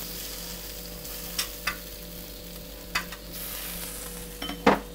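Pad thai frying in a hot wok: rice noodles, prawns, tofu and dried shrimp sizzling steadily, with a few sharp clinks of the metal spatula against the wok as it is stir-fried.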